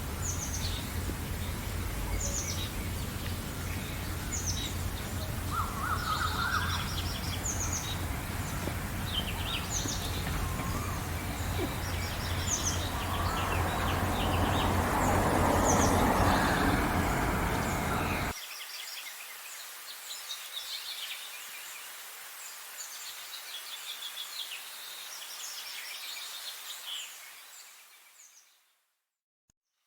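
Many small songbirds chirping and twittering in quick, high notes over a steady low hum and background rush. The rush swells to its loudest and then cuts off abruptly about two-thirds of the way through. The birds carry on more thinly, then fade out just before the end.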